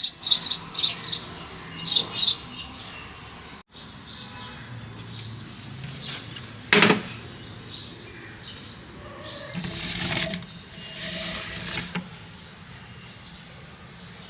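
Small birds chirping in quick repeated bursts for the first two seconds or so. After a brief break there is a single sharp knock about seven seconds in, then a few short rustling or scraping noises.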